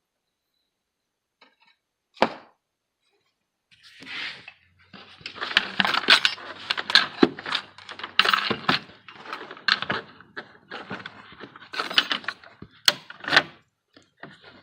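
Metal hand tools clinking, knocking and rattling while a wrench loosens the car battery's positive terminal: one sharp click about two seconds in, then a long stretch of busy clatter.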